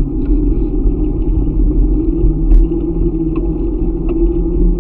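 Steady low wind rumble on a bicycle-mounted camera's microphone while riding, with a few sharp clicks and rattles.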